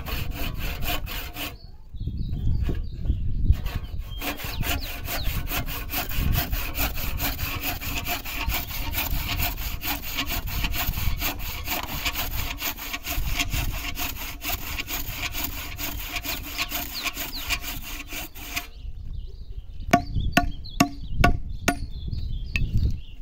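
Handsaw cutting into the end of a wooden ox-cart axle in quick back-and-forth strokes, stopping briefly near the start, then sawing steadily for about fifteen seconds. Near the end the sawing stops and a few sharp knocks follow as a hatchet strikes the wood to break out the cut piece.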